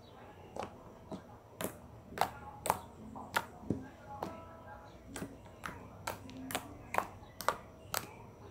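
Grey glitter slime with small white beads being kneaded, stretched and pressed by hand, giving sharp wet clicks and pops about twice a second at an uneven pace.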